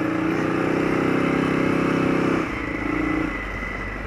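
Arctic Cat 650 H1 ATV's freshly rebuilt single-cylinder engine pulling under throttle on a ride. It eases off about two and a half seconds in, picks up briefly, then drops back again near the end.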